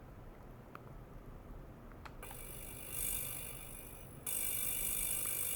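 High-pitched hiss with several steady whistling tones from an ultrasonic probe setup being driven into oscillation. It comes in about two seconds in and jumps abruptly to a louder, steady level about four seconds in.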